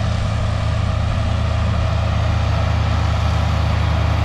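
International Harvester 1066 tractor's diesel engine running at a steady speed while pulling a hay mower through standing grass, a constant low hum.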